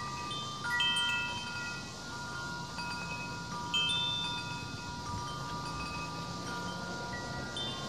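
Wind chimes ringing: several clear metal tones struck at irregular moments, each ringing on and overlapping the others, with louder strikes about a second in and near four seconds in, over a low steady rumble.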